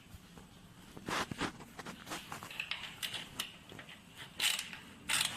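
Rustling with scattered short scrapes and light clicks, the loudest bursts about a second in and near the end, from hands handling parts.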